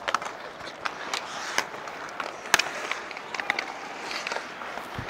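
Ice hockey play: skates scraping on the ice with repeated sharp clacks of sticks and puck, the loudest about two and a half seconds in.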